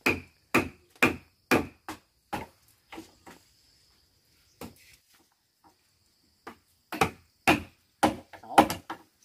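Repeated blows of a woodworking tool cutting into timber, about two a second, in two runs with a short pause between, over a faint steady high insect buzz.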